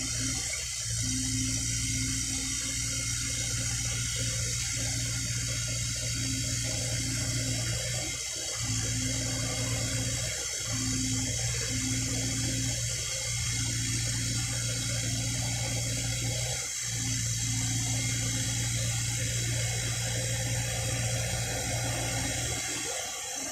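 Excavator's diesel engine running with a steady low hum, dropping out briefly a few times, under a constant rushing hiss like running water.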